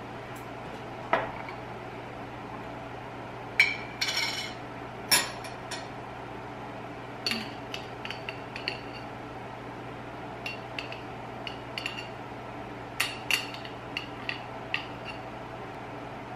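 Glass olive jars handled on a stone countertop: separate knocks and ringing clinks of glass. Clusters of small clicks come as olives tip out of the jar into a wooden bowl.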